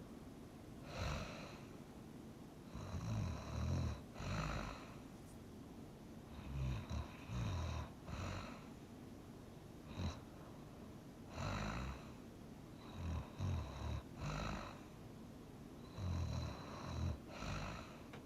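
A person snoring in sleep: irregular snores every second or two, some coming in quick pairs, each with a low fluttering rumble.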